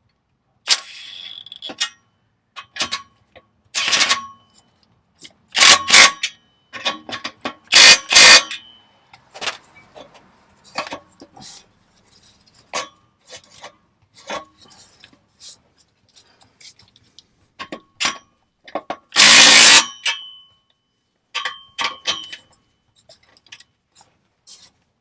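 Irregular metallic clanks and knocks from work on a car exhaust system and tools, several leaving a brief metallic ring. A louder burst of noise lasting under a second comes about three-quarters of the way through.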